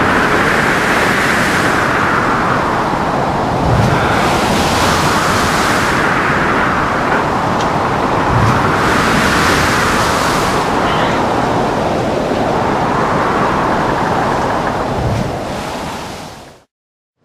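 Ship in a storm: a rushing wash of heavy waves and wind that swells about every four seconds, with three low thuds. It fades out shortly before the end.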